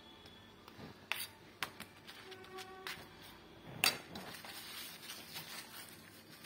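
Steel spoon clinking and scraping on a steel thali while white butter is put onto a roti: a few light taps and one sharp clink about four seconds in.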